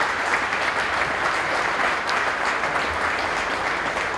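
A roomful of people applauding: many hands clapping at once in a dense, steady patter.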